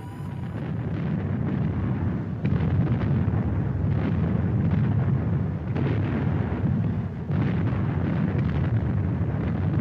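Loud, continuous low rumbling noise, dense and rough, with a few faint sharper knocks now and then.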